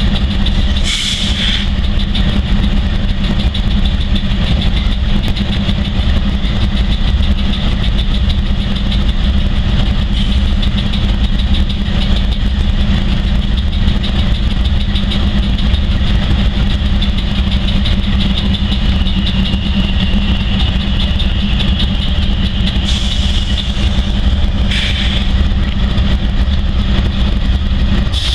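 Diesel-electric freight locomotives running steadily at idle, a low engine drone with a steady high whine over it, with brief hisses about a second in and twice near the end.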